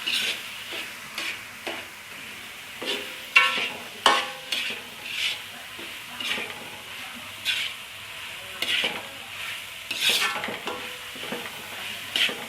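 Squid stir-frying in a pan: a steady sizzle with irregular scrapes and knocks of the spatula against the pan, about one or two a second, as the pieces are stirred.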